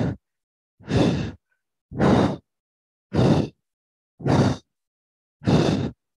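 A man's forceful breaths blown close into a headset microphone, about one a second, each a short noisy rush, in time with side-to-side arm swings during a core exercise.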